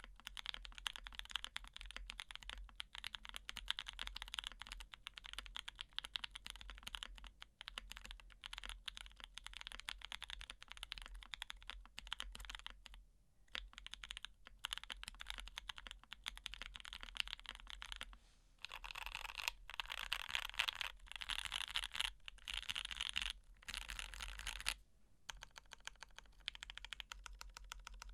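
Fast, continuous typing on a custom mechanical keyboard: GHS RAR prototype case with an aluminum plate, lubed Lilac tactile switches and GMK keycaps. There are a few brief pauses in the keystrokes, about 13, 18 and 25 seconds in.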